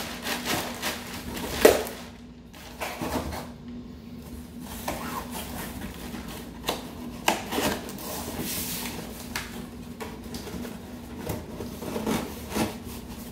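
Cardboard rifle box and its plastic bag being handled: plastic crinkling, cardboard inserts rubbing and scraping as they are pushed in, and the box flaps folded shut. Scattered knocks of cardboard on cardboard, the sharpest just under two seconds in.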